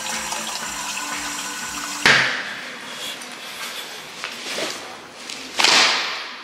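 Water dispenser running into a plastic shaker cup, a steady rushing pour that stops about two seconds in with a sudden loud knock. A second loud thump follows about three and a half seconds later and fades quickly.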